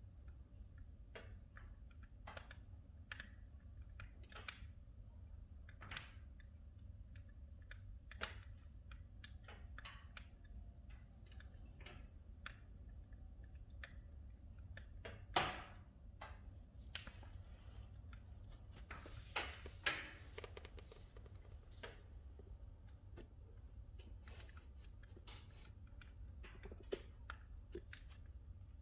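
Oak logs burning in a Leda wood-burning fireplace, crackling with faint irregular clicks and pops: a sharper pop about halfway through and a cluster of louder pops about two-thirds of the way through, over a low steady rumble.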